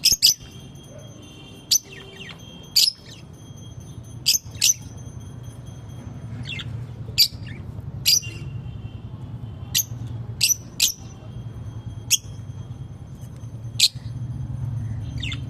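Pet lovebirds giving short, sharp high chirps, one every second or so at irregular intervals, over a steady low hum.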